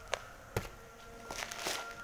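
Plastic packaging crinkling as it is handled: two short sharp crackles in the first half second, then a longer crackly rustle in the second half. A faint steady whine runs underneath.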